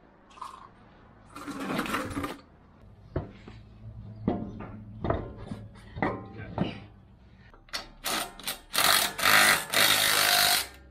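Front wheel going back onto a 4WD's hub with knocks and clicks as the wheel is hung and the nuts started, then an impact wrench rattling the wheel nuts up in several short, loud bursts over the last three seconds.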